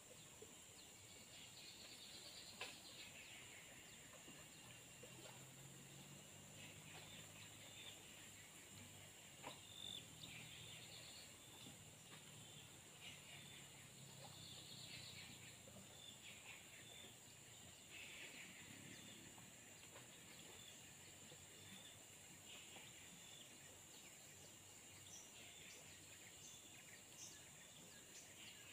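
Faint tropical riverbank ambience: birds calling every few seconds over a steady high insect drone, with a faint low hum through the middle.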